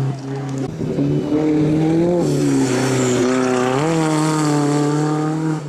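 Mk2 Volkswagen Golf hillclimb race car driving past hard, its engine note held high. The pitch dips about two seconds in and climbs again a little before four seconds.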